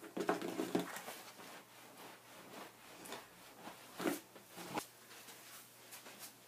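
Hands rubbing and pressing wet, soapy wool felt through a mesh cloth: irregular soft scrubbing strokes, a few louder ones near the start and around four to five seconds in. This is the agitation stage of wet felting, working the fibres until the felt is tight.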